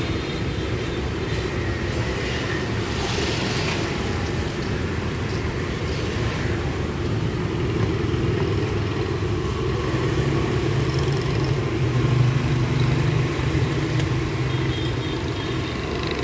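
Steady rumble of road traffic passing by, swelling a little about twelve seconds in.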